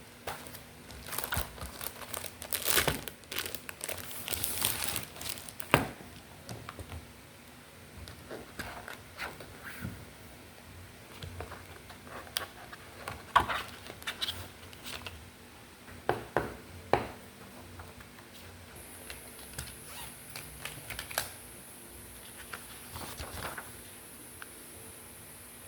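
Packaging being handled and crumpled: irregular crinkling rustles with a few sharper rips, busiest in the first several seconds and then more sparse.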